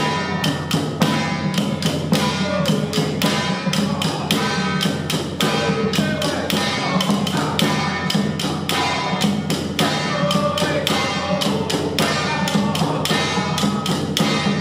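Traditional temple ritual music: a melody over a steady, quick clicking percussion beat.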